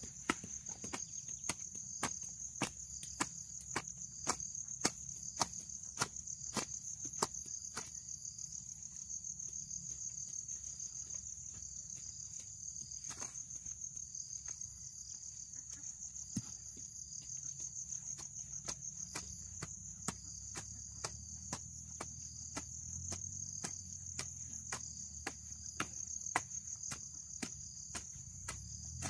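A metal-bladed hoe striking and scraping through grass and soil in repeated strokes, one or two a second, over a steady high chirring of insects.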